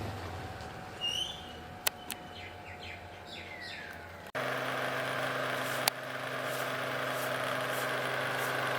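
A few short bird chirps over outdoor background noise, then an abrupt switch about four seconds in to a steady hum and whir of a small electric motor, with a single click shortly after.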